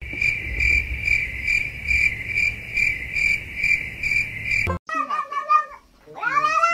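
Cricket chirping added as a sound effect, a steady high trill pulsing about twice a second, which stops suddenly a little under five seconds in. After a brief gap a small black kitten meows twice.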